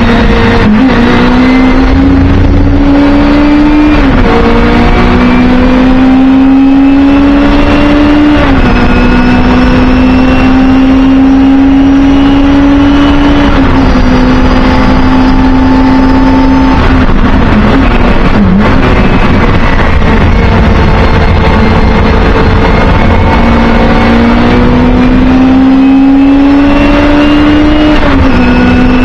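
Singer Chamois historic racing saloon heard from inside the cabin: its Hillman Imp-based rear-mounted four-cylinder engine is at full throttle and very loud. The engine note climbs steadily and drops sharply at each gear change, several times. There is a brief lift about two-thirds of the way through and a long climb before one more shift near the end.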